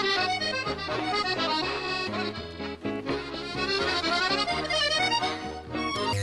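Accordion music: a quick, busy melody over a bass line that moves from note to note.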